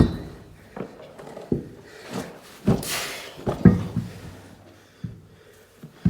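A run of irregular knocks and clunks, about six of them a second or so apart, from a heavy skid steer wheel and tire being wrestled onto its hub.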